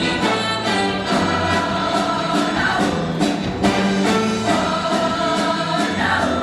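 Show choir singing in harmony over a live band, with a steady drum beat and bass line underneath.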